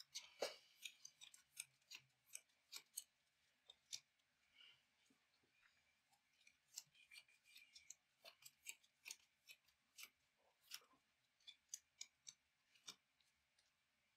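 Trading cards being handled and set down on the table: quiet, irregular clicks and taps, a few every second.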